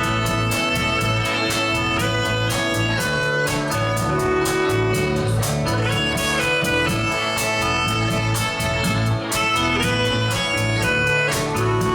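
Live band playing an instrumental break between sung verses: a lead melody of held notes over guitar, bass and drums keeping a steady beat.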